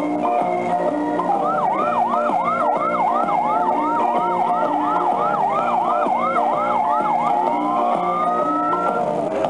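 Falgas Fire Truck 2S kiddie ride playing an electronic fire-engine siren effect over its tune from its speaker. The siren goes in fast rising-and-falling whoops, about two to three a second, for about six seconds, then gives one slower rising wail near the end.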